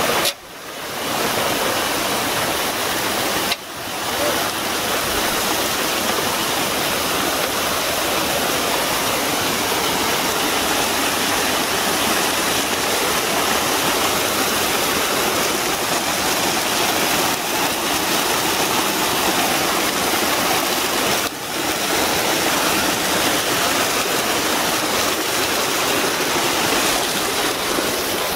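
Hot-spring water rushing steadily over the rocks of the trail. The sound briefly drops away just at the start, again after about three and a half seconds and again about 21 seconds in.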